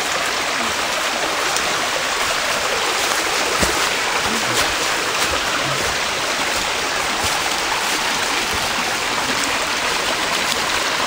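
Shallow spring-fed creek running over rocks, a steady water noise with a few faint clicks.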